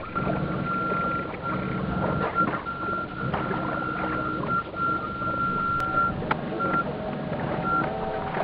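Onboard sound of an electric radio-controlled model tug, sped up four times: a steady high electrical whine that breaks off and returns several times, over a low motor hum and the wash of water.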